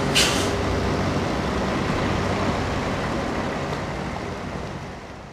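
Diesel lorry pulling a refrigerated semi-trailer, its engine running steadily as it drives off. There is a short hiss of air from the air brakes about a quarter second in. The engine sound fades gradually as the lorry moves away.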